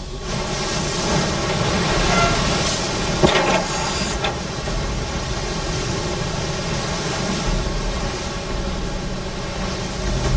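Steady rumble and wash of a surfaced submarine running through the sea, with a single short knock about three seconds in.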